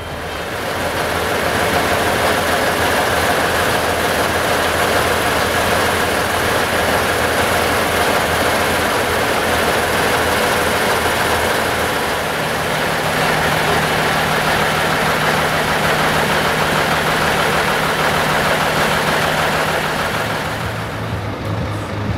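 Heavy truck's diesel engine running close by, loud and steady. It swells up over the first couple of seconds and eases off near the end, with a steady low hum joining about halfway through.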